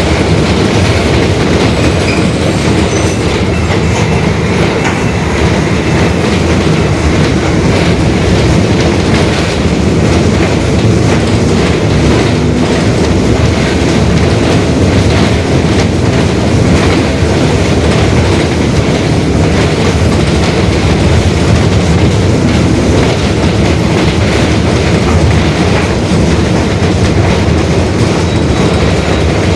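Mercedes-Benz OF-1721 Bluetec 5 city bus under way: its diesel engine and drivetrain give a steady, loud low rumble with constant rattling, and the differential is growling.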